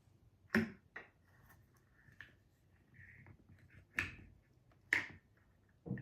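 Handling noises from small kit items: five or six sharp clicks and taps, irregularly spaced, with the loudest about half a second in and around four and five seconds in.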